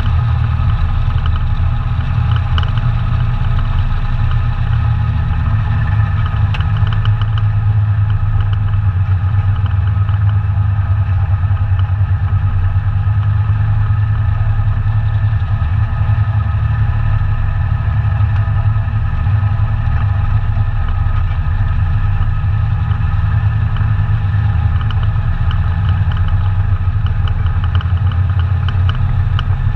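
ATV engine running at a steady, even speed, with no marked revving.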